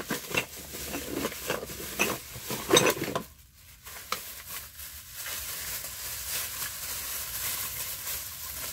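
Small knickknacks knocking and clicking against each other as they are rummaged through by hand, then a few seconds of steady rustling from a plastic bag being handled.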